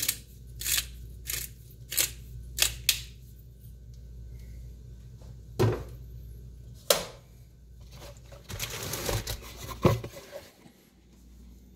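Spice grinder twisted by hand, a run of crisp grinding clicks about two a second for the first three seconds as pepper is ground. Then two single knocks, and near the end rustling handling noise with a sharp click as the phone camera is picked up.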